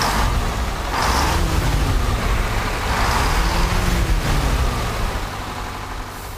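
A motor vehicle engine running with a heavy low rumble, its pitch rising and falling twice.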